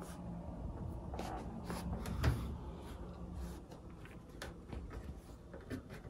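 Cat pawing at a microwave oven's door: scattered soft taps, scrapes and clicks of paws and claws on the door, with one louder knock about two seconds in.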